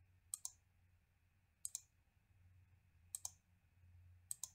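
Computer mouse clicking, faint: four quick pairs of clicks about a second and a half apart as wire points are placed in a schematic editor.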